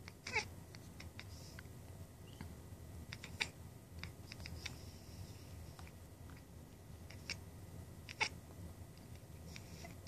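Domestic cat chattering and chirping at a bird: a string of short, clicky chirps at irregular intervals, with a few sharper, louder ones, over a low steady hum.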